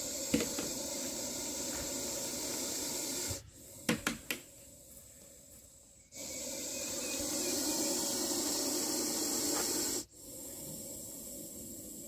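Russell's viper hissing in long, forceful blasts, each lasting several seconds, with short quieter breaks between them: the loud pressure-cooker-like hiss of a defensive viper. A few sharp clicks come in the first break.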